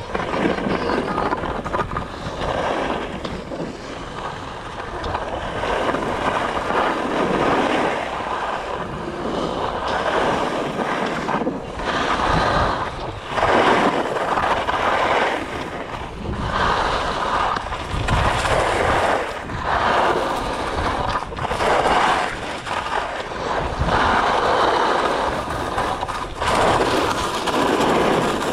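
Skis scraping and carving over groomed snow through a run of turns. The hiss swells with each turn, about every one and a half to two seconds, with wind rushing over the microphone.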